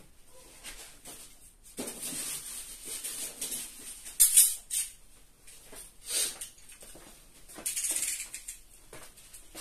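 Irregular rustling and light scraping of hands handling materials, coming in short uneven bursts, with a few louder scrapes around the middle and near the end.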